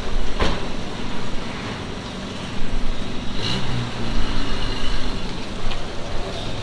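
A 1989 Toyota pickup's engine running through a new stock-replacement cat-back exhaust. A door shuts sharply about half a second in, and from about three seconds in the engine picks up as the truck pulls away.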